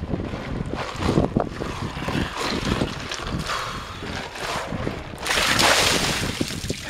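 Wind on the microphone, then about five seconds in a bucket of cold water with ice is tipped over a person's head and splashes down over him for about a second and a half.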